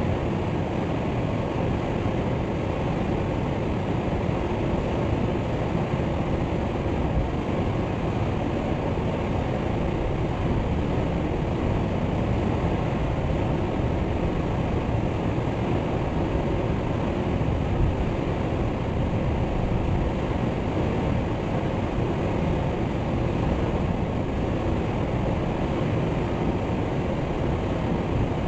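Waterfall: water falling and splashing in a steady, unbroken rush, deep-toned and even, with no birdsong.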